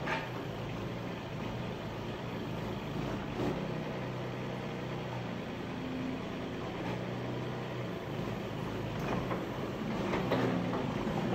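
Mini excavator's engine running steadily as the machine creeps forward on its tracks, with a few sharp knocks and clanks, one just at the start and others about three seconds in and near the end.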